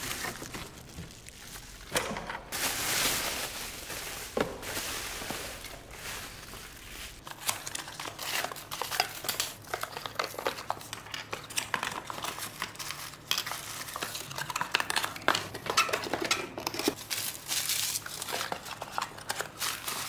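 Plastic packing wrap and a cardboard box crinkling and rustling as a rack of Keihin FCR flat-slide carburetors is unpacked. Irregular small clicks and clinks come from the metal carburetor bodies being handled and set down.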